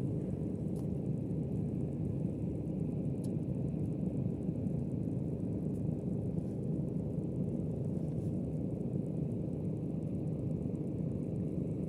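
Steady low rumble of wind buffeting the microphone at the seaside, with a few faint clicks.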